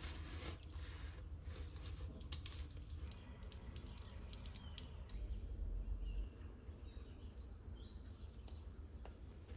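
Crust of a baked red-lentil burger bun, topped with pumpkin and sesame seeds, crunching and crackling as a finger presses on it: a run of small crisp clicks, thickest in the first three seconds, over a low rumble.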